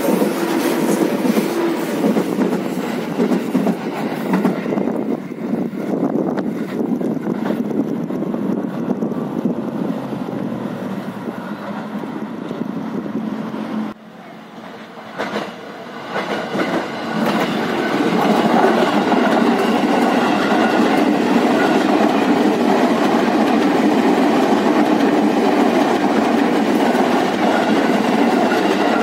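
JR 205 series electric commuter trains passing on a curve. The first rolls by close with the clickety-clack of wheels over rail joints and fades away; after a sudden cut about halfway through, a second approaches, growing louder, and runs steadily past close by.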